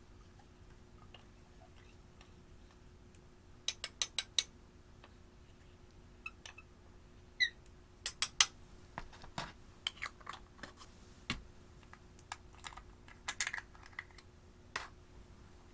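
Irregular sharp clicks and taps in small clusters, with a short squeak about halfway through.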